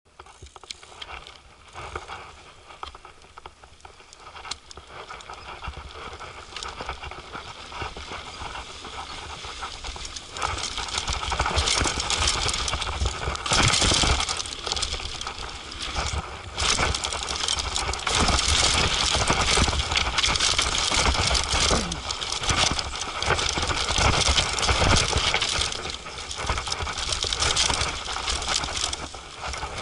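Mountain bike ridden downhill on a rough dirt trail: continuous clattering and rattling of the bike over bumps with a rushing noise underneath. It grows markedly louder about ten seconds in as the ride gets faster and rougher.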